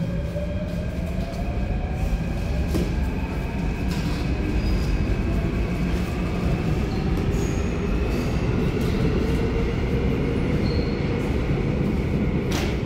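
Seoul Metro Line 2 subway train running, heard from inside the car: a steady rumble of wheels on track, with an electric motor whine that rises in pitch over the first few seconds as the train gathers speed. A sharp click sounds near the end.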